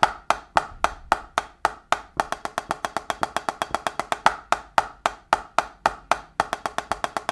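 Snare drum played with sticks in even alternating single strokes, a steady train of sharp, crisp hits at a slightly faster tempo, worked as a singles exercise in groups of four and eight.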